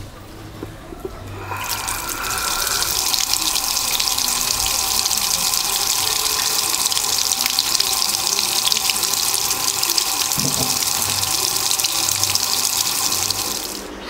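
Water running from a tap onto a small plastic paddle wheel, a steady rushing splash with a few faint steady tones underneath. It starts about a second and a half in and cuts off suddenly at the end.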